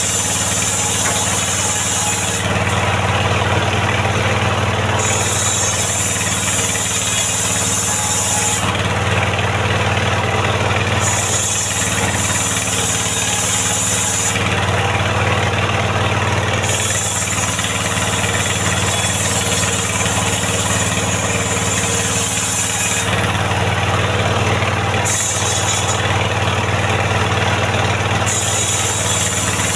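Engine-driven mobile circular sawmill ripping mahogany boards into rafters. The engine runs steadily throughout, and a high whining hiss comes in each time the big circular blade is in the wood. This happens in repeated passes of a few seconds each, with short breaks while the next board is fed.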